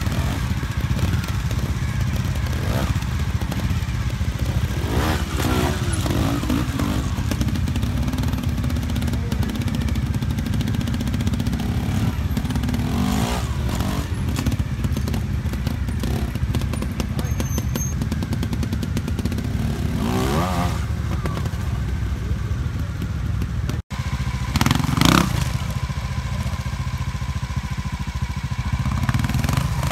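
Trials motorcycle engine running low and steady, with short rising-and-falling throttle blips a few times through as the bike is worked over rocks.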